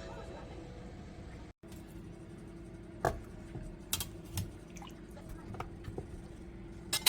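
A few light clicks and knocks, as of objects being handled, over quiet room tone with a faint steady hum. The sound cuts out briefly about a second and a half in.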